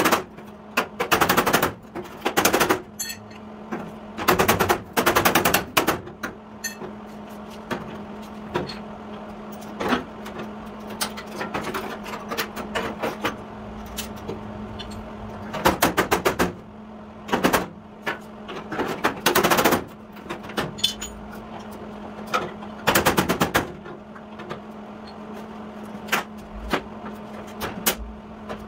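Quick bursts of hammer blows on the steel rear fender of a 1953 Chevy truck, knocking the damaged sheet metal back into shape, with short pauses between bursts. A steady low hum runs underneath.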